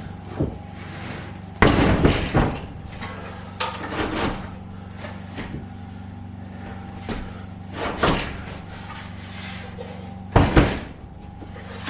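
Knocks and thumps as a heavy electrical unit is lifted and set against a wall mount, in about five separate bouts, loudest about 2 seconds in, around 8 seconds and near the end. A steady low hum runs underneath.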